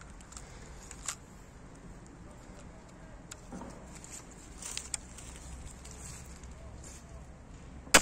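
A 130 lb Cold Steel crossbow is handled and loaded, with a few small clicks and rustles. Just at the end it is fired once: a single sharp, loud snap, by far the loudest sound.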